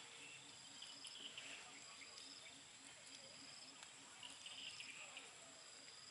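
Near silence outdoors: faint insects chirping in the grass, a steady high whine with short repeated chirps, under a faint low pulse about three times a second.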